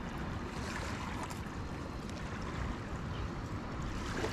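Steady wind buffeting the microphone, mixed with waves washing on the shore.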